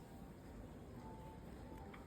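Faint rainy street ambience: a steady low rumble of distant traffic under a light hiss of rain, with a brief faint tone about a second in.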